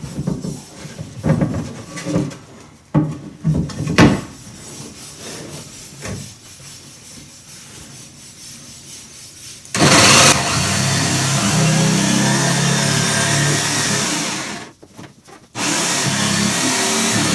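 A few scattered knocks, then about ten seconds in a jigsaw starts up and cuts through marine plywood with a steady rasping run. It stops for about a second near the end and starts cutting again.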